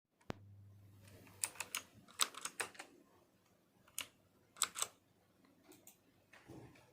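Keys being pressed on a mini mechanical keyboard with clicky blue switches: sharp clicks in irregular short runs and single strokes, with pauses between.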